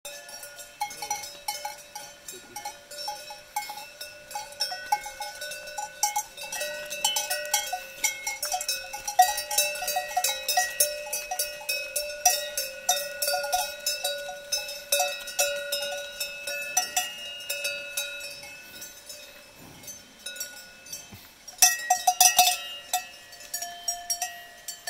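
Cowbells on a small herd of cattle clanking irregularly and ringing as the cows walk, several bells of different pitch overlapping, with a louder flurry of clanks near the end.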